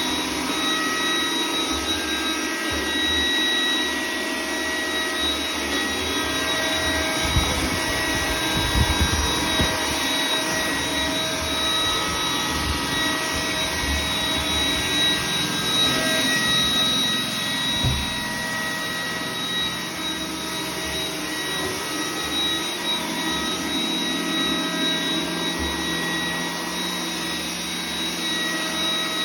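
iRobot Roomba 980 robot vacuum running with a steady whine from its motors and brushes. A few low bumps and knocks come about seven to ten seconds in and again near eighteen seconds.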